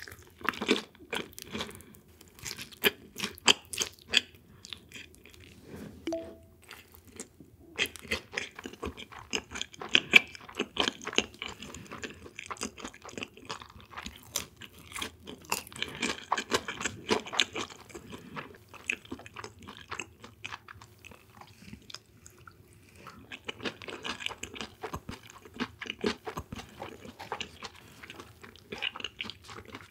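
Close-miked chewing and biting of crisp fried food: crunches come in runs, with a couple of quieter spells of softer chewing.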